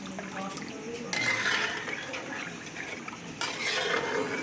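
Water splashing into a metal pot in two rushes, with light clinks of utensils against the pot.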